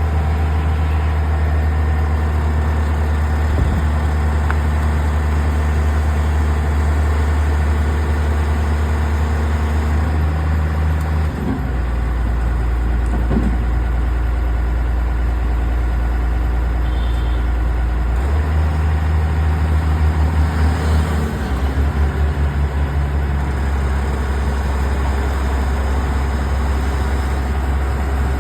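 Heavy diesel engine of an excavator or truck running steadily, its low hum stepping to a different engine speed a few times.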